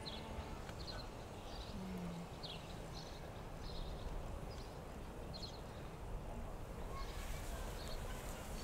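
A small bird chirping over and over, a short high chirp about every three quarters of a second, over faint steady outdoor background noise.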